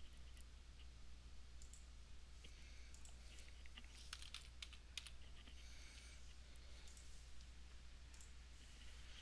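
Faint, scattered computer mouse clicks and keyboard taps over a steady low hum.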